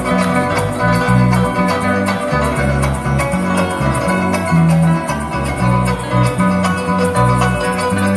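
Live llanero-style instrumental music on harp, cuatro and electric bass, with a shaker keeping a steady fast beat and a busy bass line. No singing.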